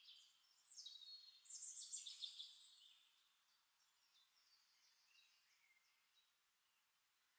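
Faint high-pitched bird chirps and twitters, with a few quick downward-sliding calls, loudest in the first two or three seconds and then thinning to a few soft calls.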